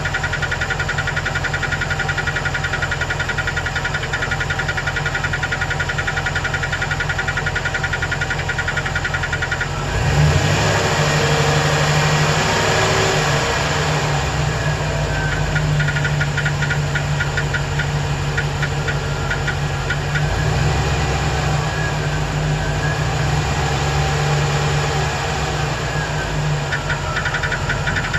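2008 Chevrolet Express 2500's 4.8-litre V8 idling with a fast, regular ticking. About ten seconds in, the engine is brought up to a higher, louder speed and the ticking mostly fades out. Near the end it drops back to idle and the ticking returns. The owner suspected a collapsed lifter on cylinder 8 but is no longer sure.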